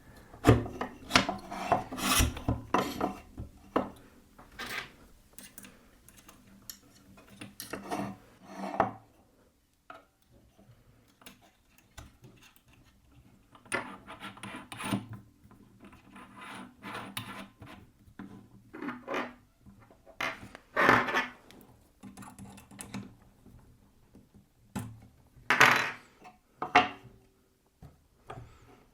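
Wood rubbing and scraping against wood and metal, with scattered clicks and knocks, in irregular bursts with quiet gaps in between.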